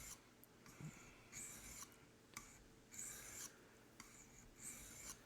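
Faint strokes of a D2-steel knife blade drawn across a 600-grit sharpening stone, several short raspy swipes about a second or so apart.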